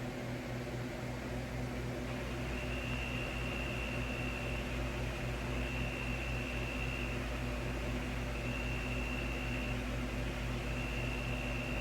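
Steady low hum and hiss, with a faint high-pitched tone that sounds four times, each lasting a second or so.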